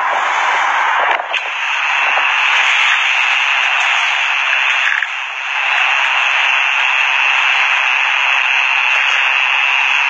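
Loud steady hiss like radio static, with a high steady whistling tone running through it from about a second in and briefly dipping around the middle.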